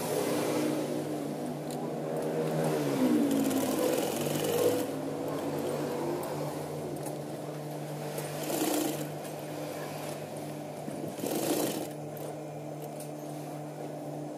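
Sewing machine stitching through denim, its motor humming steadily with the pitch shifting briefly as the speed changes, and two short swishing noises partway through.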